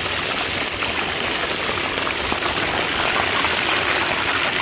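Whole fish frying in hot oil in a disco (plow-disc cooker): a steady sizzling hiss with fine crackles.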